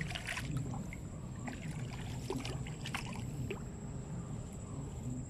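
Wet mud and shallow water squelching and sloshing in small irregular clicks as an arm digs down into a mudskipper burrow, over a steady low rumble.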